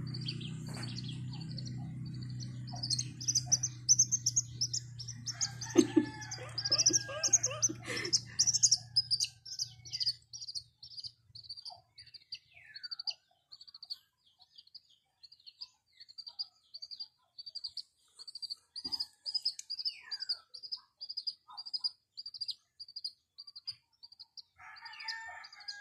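Baby chick peeping steadily: short, high chirps repeated about twice a second, over a low hum that fades out about ten seconds in.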